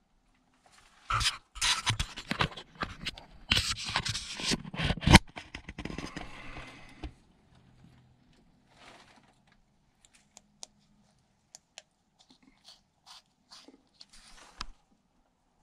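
Close handling noise: scraping and knocking as a camera is pushed against and through the slats of a mine-entrance barrier, loud for about six seconds, then a few faint clicks and taps.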